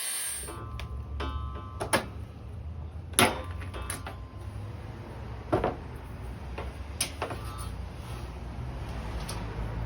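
Several sharp knocks and clanks of 16-gauge sheet-metal pieces and their wooden jig being handled, some leaving a brief metallic ring, over a steady low hum.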